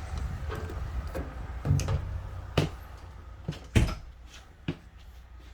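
A handful of sharp knocks and thuds from an RV door being handled, the loudest about two thirds of the way through, over a low outdoor rumble that drops away in the second half.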